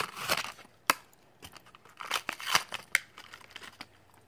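A Hot Wheels blister card being torn open by hand: the cardboard backing rips and the plastic bubble crinkles in several short bursts over the first three seconds, with a sharp click about a second in, then softer handling of the crumpled packaging.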